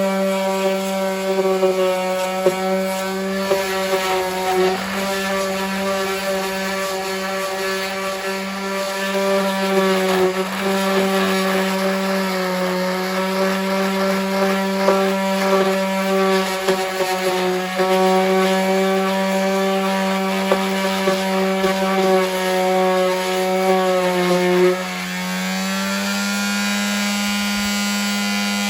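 Electric palm sander running steadily, its motor humming while the pad rubs and scratches across fiberglass body filler. About 25 s in the hum dips briefly in pitch, then settles slightly higher and a little quieter.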